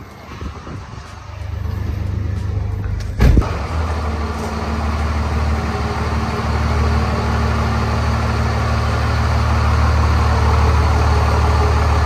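Third-gen Dodge Ram's Cummins diesel engine running steadily at low speed as the truck creeps forward, growing slightly louder. A single thump about three seconds in.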